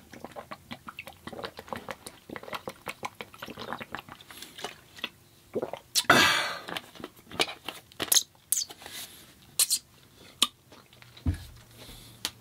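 Close-miked chewing and biting of food, a run of many quick mouth clicks, with one louder, noisier sound lasting about a second, about six seconds in.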